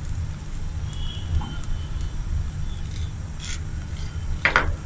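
Steady low rumble of a gas stove burner under an aluminium frying pan where a paratha is cooking dry. A few short scrapes near the end as a hand presses and turns the paratha on the pan.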